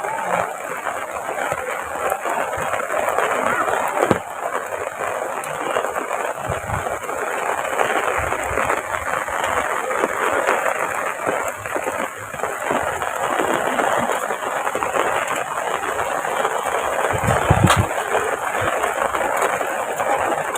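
Heavy rain falling in a steady downpour, an even hiss, with a few low thumps.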